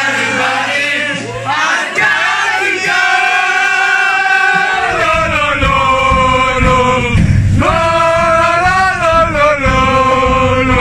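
Male voices singing together in long held notes that slide between pitches, with a low rumble underneath from about halfway through.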